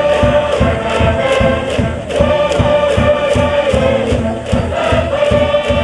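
A school brass band playing a baseball cheer song over a steady bass drum and cymbal beat, with the cheering section chanting along.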